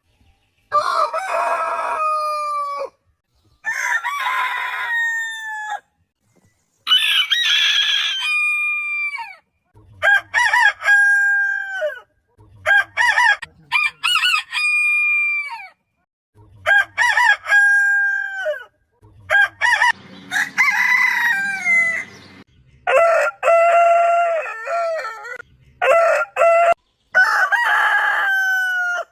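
Roosters crowing one after another, about ten crows in a row, each a couple of seconds long and ending in a falling note, at differing pitches from several birds.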